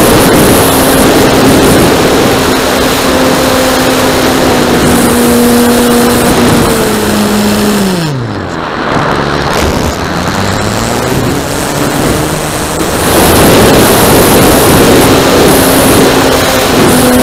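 RC Piper Cub model airplane's motor and propeller running at a steady pitch under heavy wind rush over the microphone. About seven seconds in the throttle is pulled back and the pitch falls away, then it climbs again and is back at full power about thirteen seconds in.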